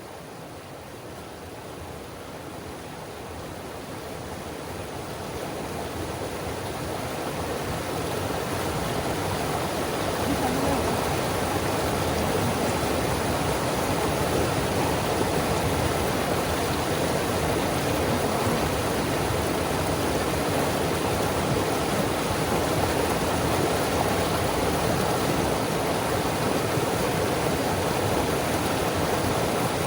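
River rapids on the North Fork Skokomish River: steady rushing water that grows louder over the first ten seconds or so, then holds level.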